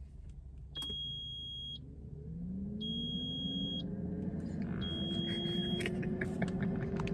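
Air fryer beeping three times, each beep about a second long, as it is set to bake. Its fan motor then starts with a hum that rises steadily in pitch and grows louder as it winds up to speed to preheat.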